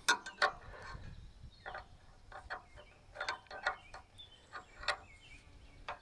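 Irregular metallic clicks and clinks of hand tools working on the blade guide of a portable bandsaw sawmill.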